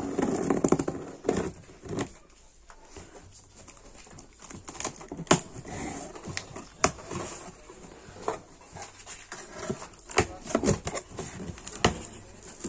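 Packing tape on a cardboard box being slit with a pen tip: scattered scraping, ripping and sharp crackling of tape and cardboard, with the box flap pulled open near the end.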